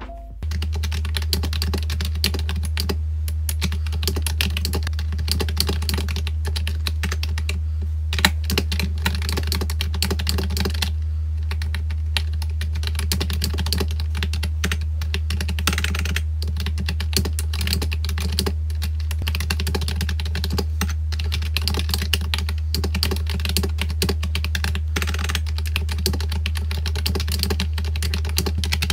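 Fast, continuous typing on the pink MageGee GT698 keyboard: a dense stream of key clacks that thins briefly about eleven seconds in. A steady low hum runs underneath.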